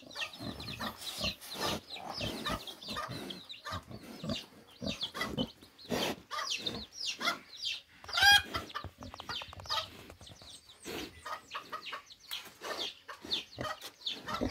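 Chickens clucking in short, repeated calls, with one louder call about eight seconds in.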